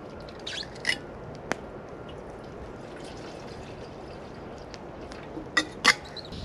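A metal cook pot being set up on a canister camp stove: a few short, sharp clinks and clicks, the loudest two close together near the end, over a steady background hiss.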